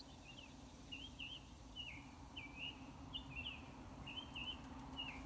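A songbird singing a run of short chirping notes, about two a second, some sliding down and some up in pitch.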